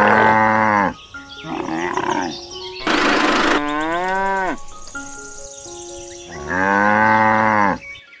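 Two long cow moos, one at the start and one near the end, each falling in pitch. Between them is a rough call that slides down in pitch, over light background music.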